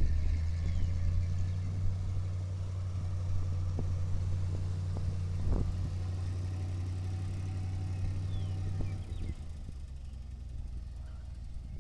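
1976 International 1800 grain truck's engine idling steadily, a low even note that grows quieter about nine seconds in.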